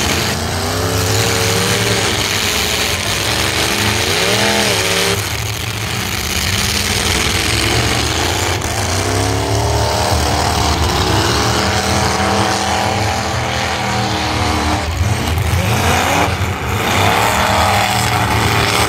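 Full-size stock demolition derby cars' engines running hard, several at once, revving up and falling back again and again as the cars ram each other.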